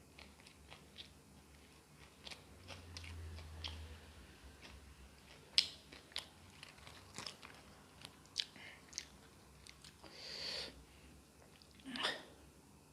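A person eating close to the microphone: wet chewing and biting, with many irregular short mouth clicks and smacks, and two longer, louder noisy sounds near the end.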